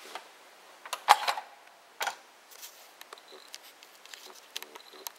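A flathead screwdriver clicking and scraping against the steel guide bar and plastic frame of a CD laser pickup mechanism as the bar is pushed loose. There are two sharp clicks, the loudest about a second in and another about two seconds in, with small ticks between and after them.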